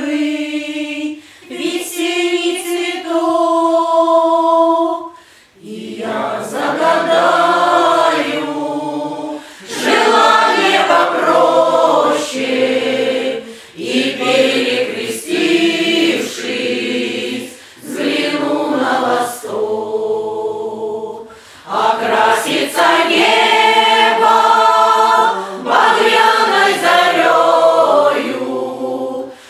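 Russian folk choir singing a cappella, in phrases with short pauses for breath. Women's voices carry the opening, and lower voices join about five seconds in.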